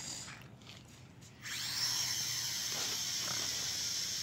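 Small toy quadcopter drone's motors spin up about a second and a half in, then run on with a steady high-pitched whine as it flies.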